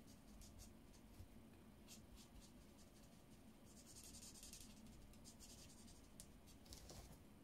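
Faint scratching of a felt-tip marker's nib on paper, in short colouring strokes, a little stronger for a stretch around the middle.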